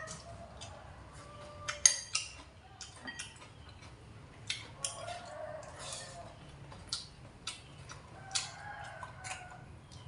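Eating with chopsticks and a spoon: many short clicks and clinks of the utensils against ceramic bowls and plates, the sharpest about two seconds in. A rooster crows in the background.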